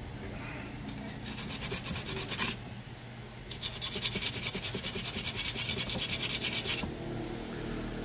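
A small stiff brush scrubbing a circuit board wet with isopropyl alcohol in rapid back-and-forth strokes, in two spells: a short one about a second in, then a longer one from about three and a half seconds to nearly seven. This cleans the desoldered DC jack pads.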